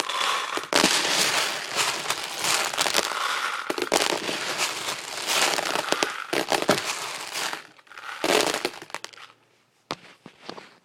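Airsoft BBs poured into the cut-off bottom of a plastic water bottle: a dense rattle of many small plastic pellets hitting plastic. It stops about seven and a half seconds in, and a shorter rattle follows about a second later.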